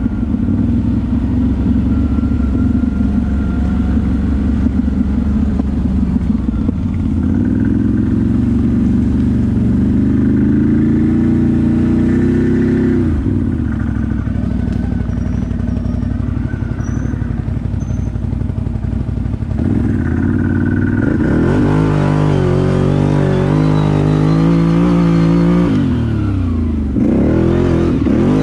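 ATV engine running under load for the whole stretch, steady at first, then rising and falling in pitch several times as the throttle is opened and eased off.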